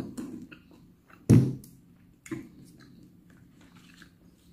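Three knocks and thumps of tableware being handled on a wooden table, the loudest a heavy thump about a second and a half in.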